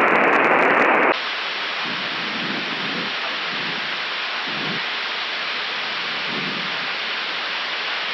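Steady rushing airflow noise in an Airbus A319 cockpit in flight, with faint muffled voices underneath. About a second in, a louder, duller hiss cuts off suddenly.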